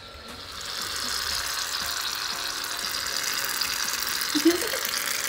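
Aerosol can of shaving cream spraying foam in a long, steady hiss that starts about half a second in. A short voice sound cuts in about four and a half seconds in.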